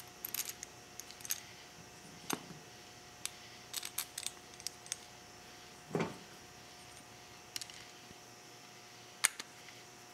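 Light metallic clicks and taps of small screws, screwdriver and aluminium float bowl being handled while the float bowl is fitted and screwed back onto a motorcycle carburetor, with a duller knock about six seconds in.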